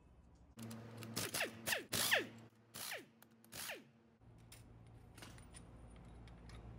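An air-powered wrench run in a string of short bursts on bolts at the front of a three-cylinder engine near the water pump. Each burst ends in a falling whine as the tool spins down. A low steady hum follows in the second half.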